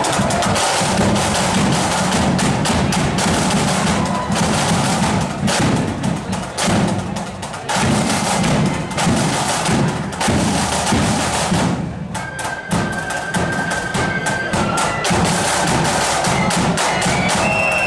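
Marching flute band playing: flutes over snare and bass drums beating a steady march rhythm. About two-thirds of the way through, single held flute notes stand out more clearly over the drums.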